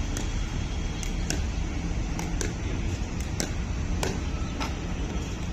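Pickleball paddles volleying a plastic ball back and forth in a fast-hands drill: about nine or ten sharp pops, often in quick pairs, over a steady low background rumble.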